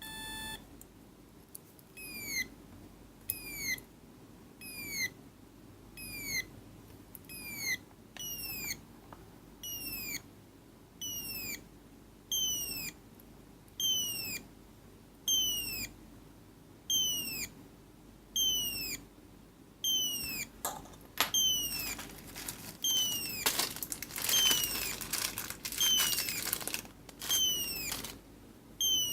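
Electronic parrot sound-effect circuit chirping: a brief steady beep, then a regular string of short whistle-like chirps, each falling in pitch, about one every 0.85 seconds. From about twenty seconds in, crackling clicks and rough noise come in with the chirps.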